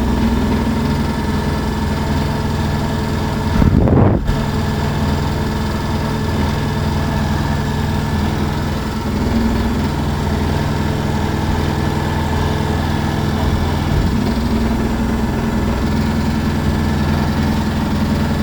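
Beko WMY81283LMB2 front-loading washing machine on a high-speed spin, its motor and drum giving a steady hum. A brief loud knock about four seconds in.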